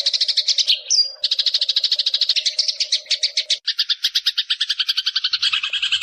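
Songbird-training recording of a fast, even, rattling trill of high chirps, about ten a second, with a short whistled note about a second in. The trill shifts to a lower, doubled tone about halfway through and changes again near the end.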